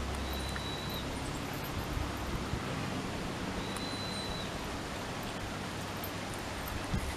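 Steady outdoor background noise, with a thin high whistle heard twice, once near the start and again about three and a half seconds later.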